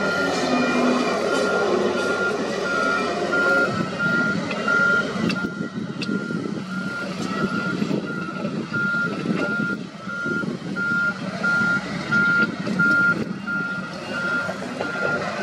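Reversing alarm on heavy earthmoving equipment, beeping at an even rhythm of roughly one high-pitched beep a second, over the rumble of machinery engines working.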